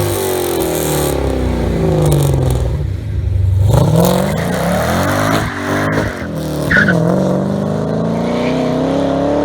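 The 2010 Camaro SS's 6.2-litre LS3 V8 is running through a Magnaflow cat-back exhaust with catless mid-pipes. The engine note falls for about three seconds as revs drop off. It then climbs under throttle, dips briefly around seven seconds, and rises steadily again.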